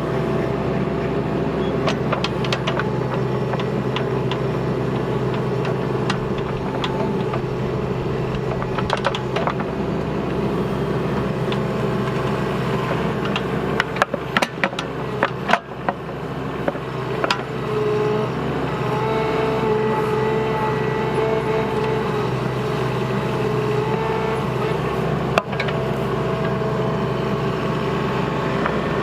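Bobcat mini excavator's diesel engine running steadily under hydraulic load while digging a trench. Several sharp metallic knocks come about halfway through, and a higher hydraulic whine comes in during the second half.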